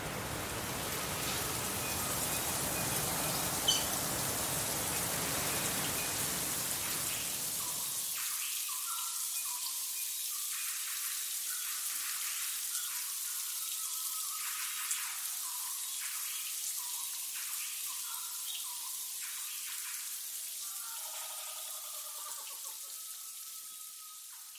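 Outdoor ambience sound bed: a steady rushing noise that thins out about eight seconds in, leaving a high hiss with scattered short chirps.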